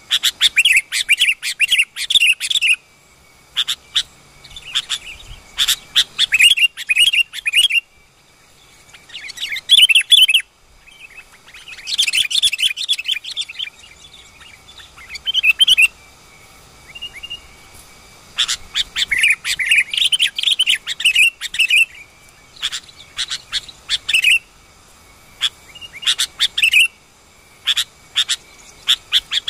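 Sooty-headed bulbuls calling: loud bursts of rapid chirping chatter, each a second or more long, repeating every few seconds with short pauses between.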